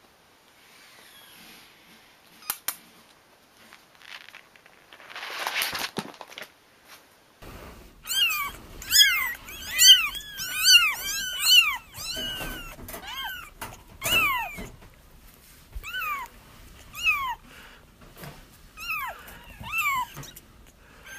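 Young kittens crying: a run of short, high meows that rise and then fall in pitch, several voices overlapping and coming two or three a second at times. They begin about eight seconds in, after soft rustling and a sharp click.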